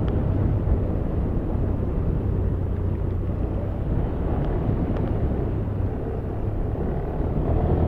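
Motorcycle engine running steadily with a constant low hum, mixed with even road and wind noise.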